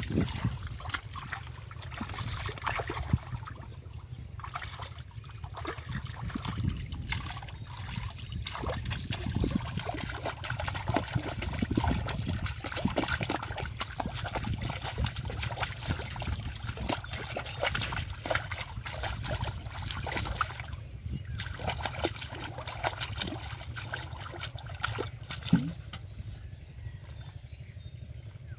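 Hands splashing, sloshing and churning in shallow muddy water while groping for fish, with irregular small splashes and trickling and dripping as water runs off the hands.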